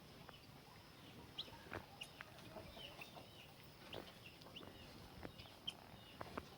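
Faint, scattered short chirps and clucks of penned farm fowl, with a few soft clicks among them.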